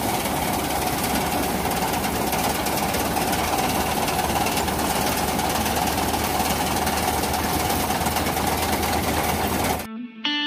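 Dewi Sri DCH-9270 rice combine harvester running, a loud steady mechanical din with no change in speed. It cuts off suddenly near the end, and guitar music starts.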